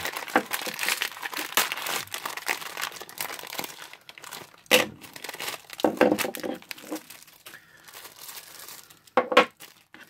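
Clear plastic packaging bag crinkling and tearing as it is pulled open and stripped off a small knife by hand, with a few louder crackles partway through and two sharp clicks near the end.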